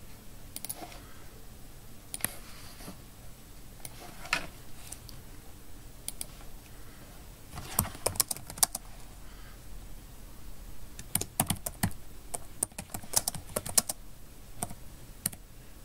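Typing on a computer keyboard: a few single clicks in the first seconds, then quicker runs of keystrokes from about halfway through.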